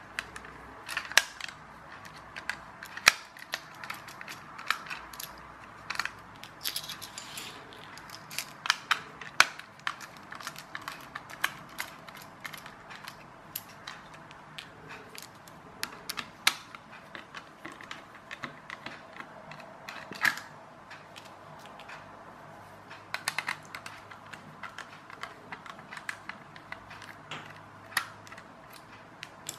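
A small precision screwdriver undoing screws from a toy car's plastic gearbox casing: irregular sharp clicks and taps of metal on plastic, with scattered handling knocks.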